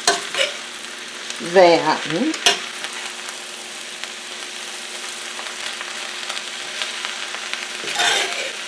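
Beet greens and Swiss chard sizzling steadily in hot oil in a pot as they sauté down. Leaves rustle as they are pressed in and turned with tongs, with a sharp clink a couple of seconds in and a louder stir near the end.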